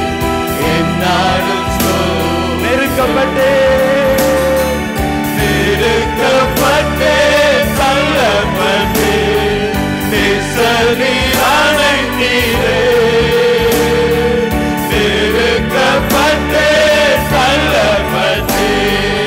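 Christian worship song sung into microphones through a PA, voices holding long gliding notes over an instrumental backing with a steady beat.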